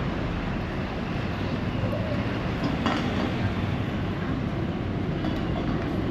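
Outdoor street ambience: a steady low rumble of nearby road traffic.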